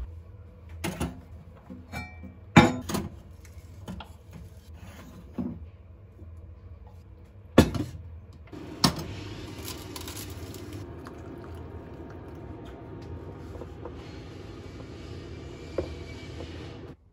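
Kitchenware being handled: a handful of sharp knocks and clinks, about six in the first nine seconds. These are followed by a steady hiss that cuts off suddenly near the end.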